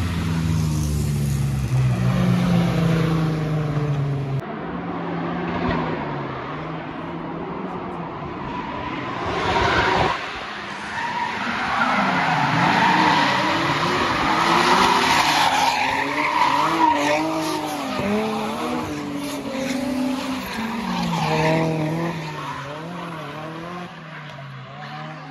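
Cars driven hard on a mountain road. A car's engine passes close in the first few seconds, then engines rev up and down with tyres squealing as the cars slide through the bends, loudest around the middle.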